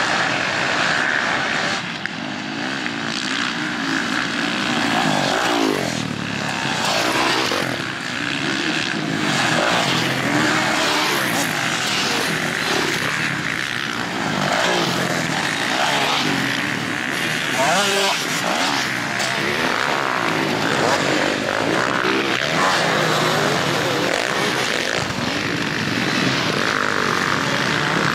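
Several motocross dirt bike engines racing, revving up and down in overlapping pitch sweeps as the bikes accelerate along the track.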